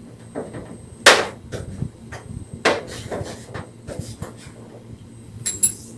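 Sharp knocks and clacks from a slim metal cooker hood's casing as it is handled and fitted into place, the loudest about a second in, followed by several lighter taps and a few small high clicks near the end.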